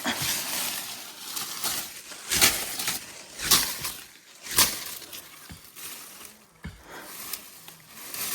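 Dry sticks and brush crackling and rustling in a string of short strokes, about one a second, as firewood is handled.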